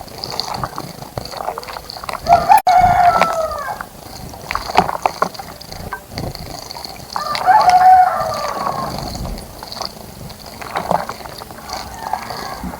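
A rooster crowing twice, each crow about a second and a half long, the first starting about two seconds in and the second about seven seconds in.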